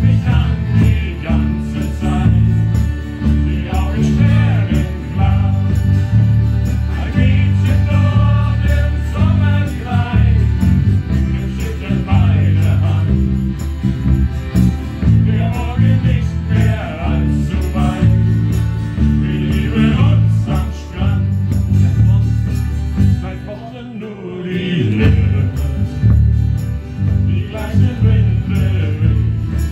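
A live shanty band playing: accordion, ukulele, guitars, electric bass and a big bass drum, with voices singing over them. The music dips briefly about 24 seconds in, then carries on.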